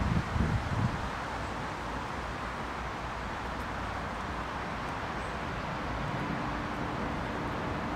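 Steady outdoor ambient noise, an even rushing hum, with a few low thumps in the first second.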